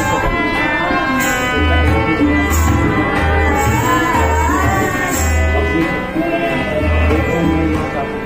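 A song: a solo voice singing a wavering melody over a regular low drum beat and held instrumental notes.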